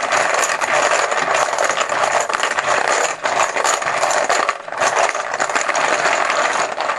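Poker chips being shaken and mixed together in a container, a dense, continuous clattering rattle of many small clicks that stops near the end.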